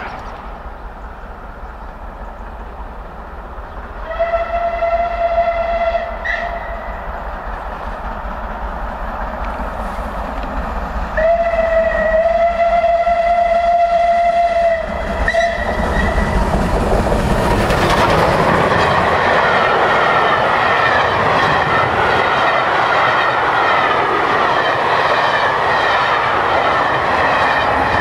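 Steam locomotive's whistle sounding two long blasts, the first about four seconds in and a longer one about eleven seconds in, as the engine approaches at speed. From about sixteen seconds the locomotive and its coaches rush past close by, the wheels clattering rhythmically over the rail joints.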